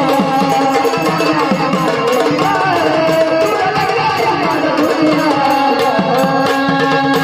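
Instrumental Marathi folk devotional music: an organ melody over a steady hand-drum beat.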